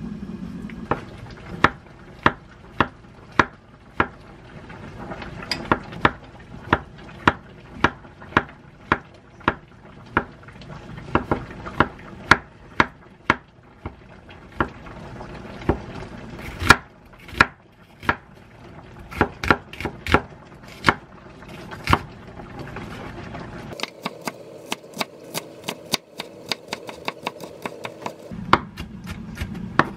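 Chef's knife cutting on a wooden cutting board, slicing button mushrooms and then dicing an onion: a steady series of sharp knife strikes on the board, quickening to rapid chopping near the end.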